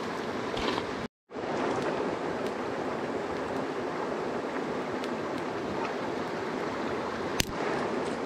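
Steady rush of flowing river water. It cuts out completely for a moment about a second in, and a single sharp crack comes near the end.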